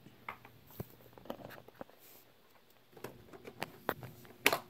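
Light handling noise of small plastic toys being moved about: scattered small clicks and taps, with a louder cluster near the end.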